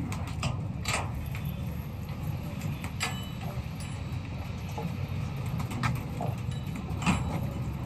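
Scattered clicks and light rattles from a wire-mesh pigeon loft door and its latch being opened and handled, over a steady low rumble.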